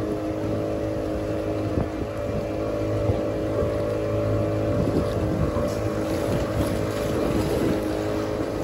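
A small motorboat's engine runs steadily as the boat moves along, with water rushing along the hull and wind buffeting the microphone.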